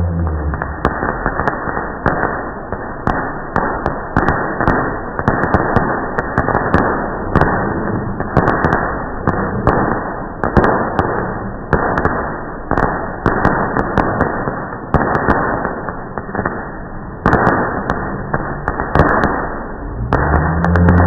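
Fireworks going off continuously, played back slowed down, so the bangs and crackle run together into a dense, deep, muffled rumble of overlapping blasts, with sharp clicks.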